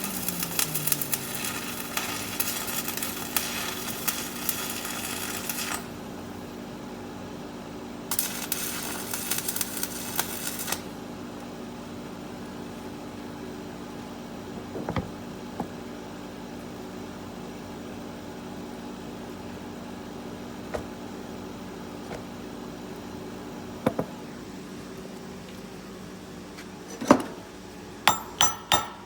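Welding arc crackling and sizzling in two runs, one of about six seconds and a shorter one of about two and a half seconds, on steel angle brackets being stitch-welded. A machine tone winds down in the first second or so. Near the end, sharp hammer strikes begin at about three a second.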